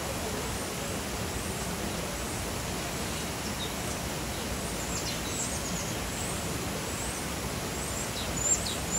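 Small birds chirping: short high calls that slide downward, several in a row from about halfway through and one louder near the end, over a steady rushing background noise.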